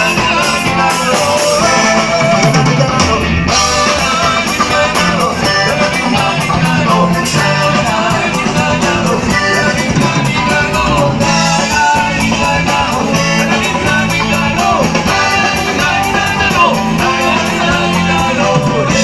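Live band playing a song through a stage PA, with electric guitars, a drum kit keeping a steady beat, and a singing voice.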